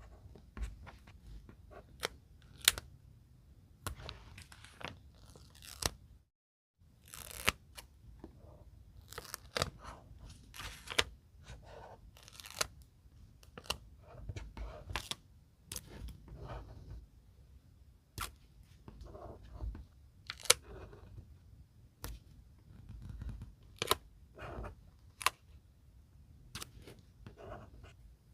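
Stickers being peeled off their backing sheet and pressed onto a paper page: short crackly peeling rustles mixed with many sharp taps and clicks. The sound drops out completely for a moment about six seconds in.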